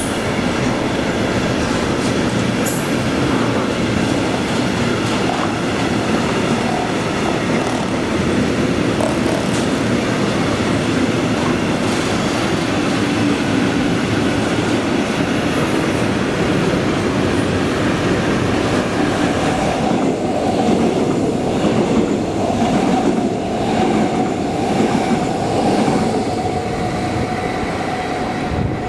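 A train passing close by: a loud, steady rumble of wheels on rails. A steady tone joins in about twenty seconds in and holds to the end.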